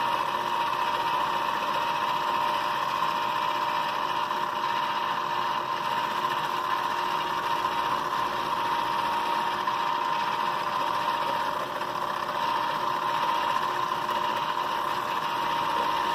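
Klutch benchtop milling machine running steadily with the spindle sped up, its four-flute end mill cutting into a plastic model locomotive shell and throwing off chips. It is a steady whine with one strong held tone.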